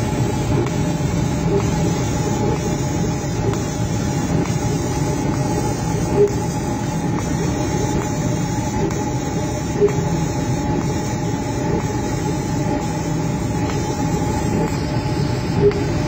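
Laser cutting machine running while cutting MDF: a steady mechanical hum and rumble with a faint constant whine, broken by three brief ticks.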